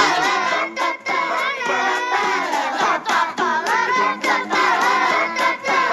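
An upbeat song with a group of voices singing over music.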